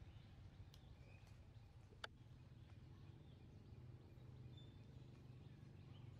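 Near silence: faint outdoor ambience with a steady low rumble and a few faint distant bird chirps, and a single sharp click about two seconds in.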